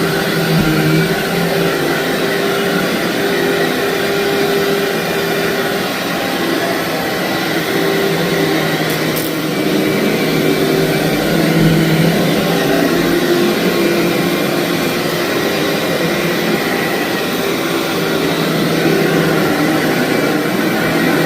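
Vacuum cleaner running steadily as it is pushed over a thick, fluffy carpet, its motor humming with slight shifts in pitch.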